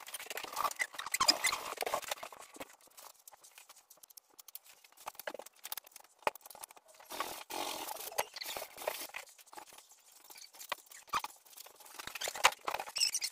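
Squeaky rubbing and scraping of a hand working over a plaster ceiling, with scattered small clicks, coming in bursts with a quieter stretch in between.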